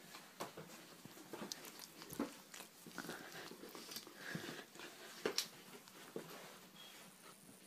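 Faint, irregular small clicks and scuffs of a Samoyed shifting about in a metal bin, its paws and claws on the metal rim, mixed with mouth noises.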